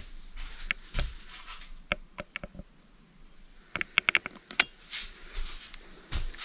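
Footsteps crunching over debris on the floor: scattered sharp crackles and snaps with a few dull thumps, the crackling thickest a little past the middle.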